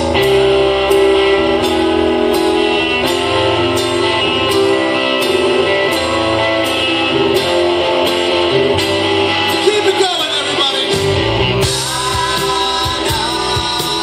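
Live rock band playing amplified: electric guitar, electric bass, keyboard and a drum kit with a steady cymbal beat, under a male lead singer.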